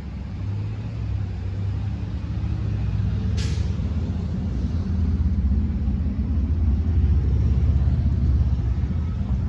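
A heavy road vehicle's engine rumbling low and growing steadily louder as it nears, with one short, sharp hiss of its air brakes about three and a half seconds in.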